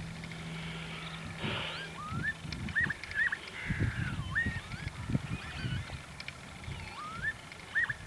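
Northern lapwings (peewits) calling: repeated 'pee-wit' calls, each a quick rising then falling slur, several in close pairs.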